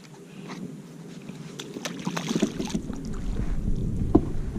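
Knocks and clatter on a plastic fishing kayak, with a low wind rumble on the microphone building through the second half and one sharp knock near the end.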